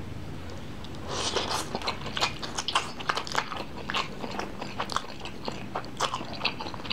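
Close-miked mouth sounds of a person eating a spoonful of noodles: chewing with many quick, wet clicks and smacks that start about a second in.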